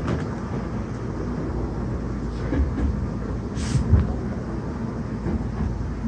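Low, steady rumble inside a Hankyu train car at a station, with a few low knocks and a short hiss about three and a half seconds in.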